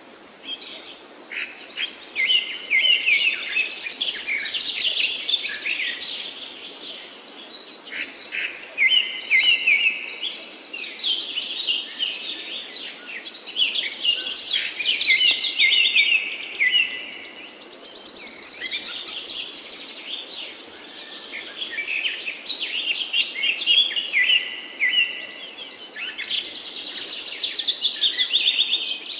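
Songbirds singing, with bursts of chirps and high fast trills coming every few seconds. A faint steady rush of river water runs underneath.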